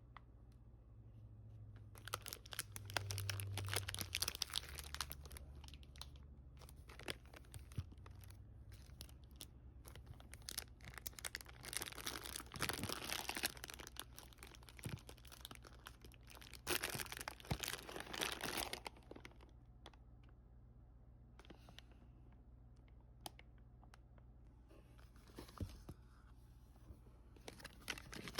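Packaging being crinkled and torn open by hand, in three main bursts: a few seconds in, near the middle and again a few seconds later, with scattered small clicks between.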